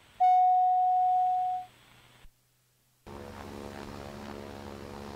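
A long, steady electronic beep tone, then, about three seconds in, a single-engine piston aircraft's engine and propeller running steadily at idle just after start.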